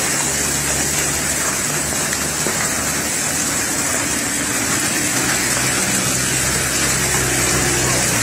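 Hail and rain falling on parked cars and wet pavement, a steady even hiss, with a faint low hum underneath.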